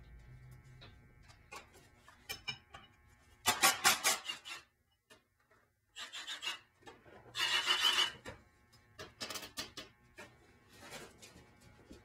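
Cordless impact driver run in short bursts on the bolts that hold the axle shaft's retainer plate to the axle housing, two longer bursts about four seconds apart with shorter ones after, and light metal clinks of bolts and tool between.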